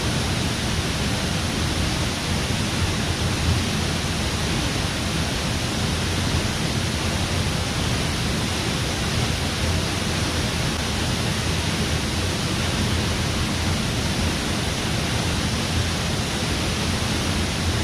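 Haew Suwat waterfall: water falling steadily into its pool, a loud, even rush with no breaks.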